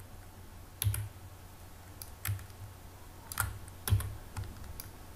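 Computer keyboard keys being pressed: a handful of separate clicks spread over a few seconds, four of them louder than the rest.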